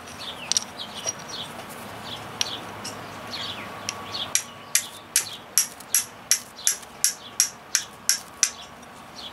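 Flint struck again and again with a hand-forged steel striker made from an old file: a quick run of sharp clicks, about four a second, starting a little under halfway through and stopping near the end. Birds chirp throughout.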